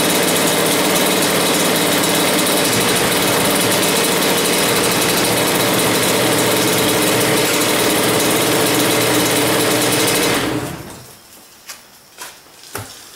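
A freshly rebuilt Honda CR85R's 85cc two-stroke single running steadily, then shut off and dying away about ten seconds in, followed by a few faint clicks.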